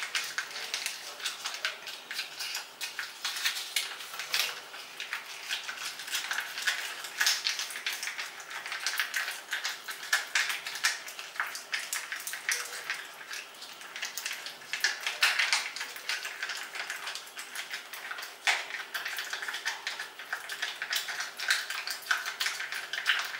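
Meeth Moisture Morerich Pack face mask being stirred in its packet: a dense run of rapid, irregular small clicks and scrapes, with a faint steady hum underneath.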